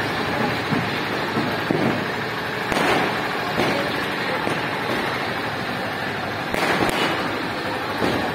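Firecrackers going off over the steady din of a crowded street procession: a sharp bang about three seconds in, another a little later, and two in quick succession near the end.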